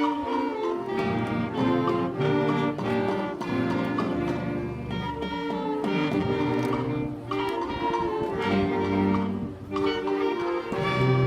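Middle school concert band playing, with held chords in the brass and winds over a moving bass line.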